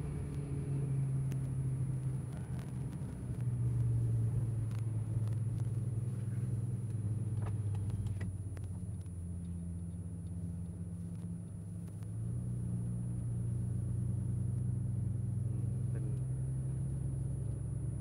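A car driving slowly at a steady pace: a low, even engine and road drone that swells slightly a few seconds in and again later on.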